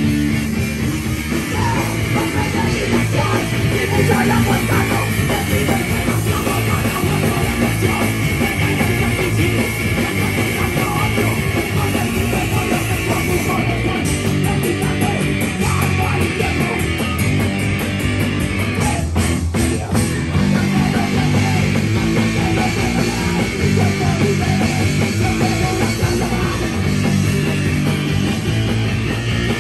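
Live rock band playing loudly: electric guitar, bass guitar and drum kit.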